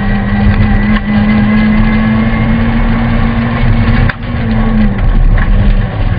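Honda Civic VTi rally car's four-cylinder engine held at high revs, heard from inside the cabin at a steady pitch; about four seconds in it dips briefly, and the pitch then settles a little lower.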